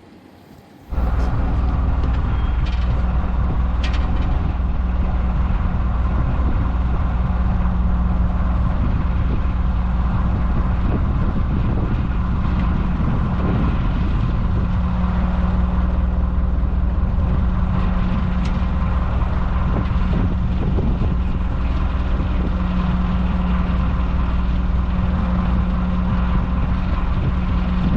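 An engine running steadily at a constant speed with a deep, even hum, starting abruptly about a second in.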